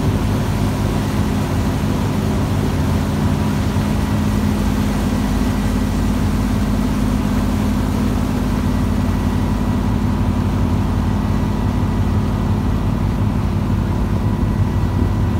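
Abra passenger boat's engine running steadily as the boat cruises, a constant low drone with a few faint steady higher tones over it.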